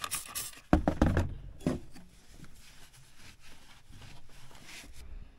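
A trigger spray bottle squirting cleaner in quick pulses onto the snowmobile's chassis, then a few knocks around a second in. After that a rag rubs and wipes faintly over the metal, stopping suddenly near the end.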